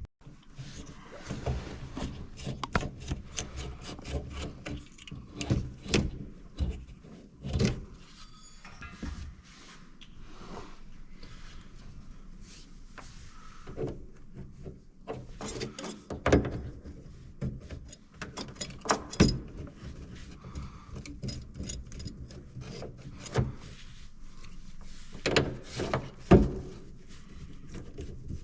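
Irregular handling noises: scattered clicks and knocks with stretches of rubbing and scraping, as of tools and parts being worked by hand.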